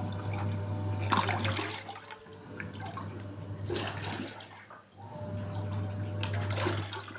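Automatic washing machine running a wash: water swishes in three surges a couple of seconds apart over a low motor hum, which stops for a few seconds in the middle and then starts again.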